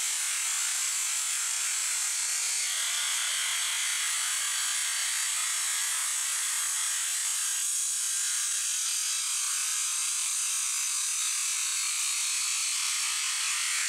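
High-pressure washer jet spraying onto a raw whole chicken and the concrete under it: a steady, high-pitched hiss of water spray.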